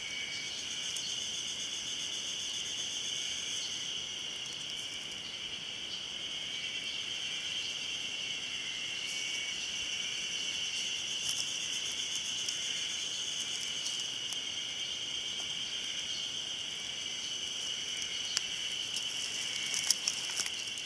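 A chorus of Ezo spring cicadas (Terpnosia nigricosta) calling, many overlapping into one steady, unbroken high-pitched drone. A few sharp clicks come near the end.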